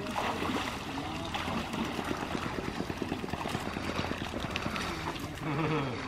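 Irregular splashing and sloshing of shallow floodwater as a retriever moves through it, with brief low men's voices now and then.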